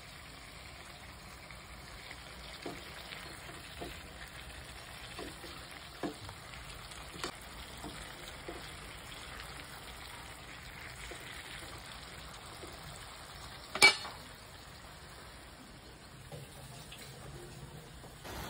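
Fried fish with carrots and bell pepper sizzling and simmering in a little water in a frying pan on an electric hot plate: a steady faint hiss. A few light clicks of a utensil against the pan, and one sharp knock about fourteen seconds in.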